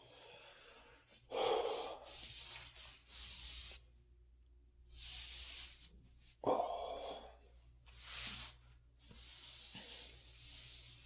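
A man breathing heavily through his mouth: about five long, noisy breaths with short pauses between them, the laboured breathing of an overstuffed stomach.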